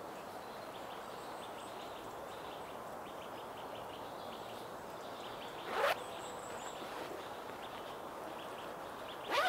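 A clothing zip pulled quickly twice, about six seconds in and again near the end, over a steady background hiss.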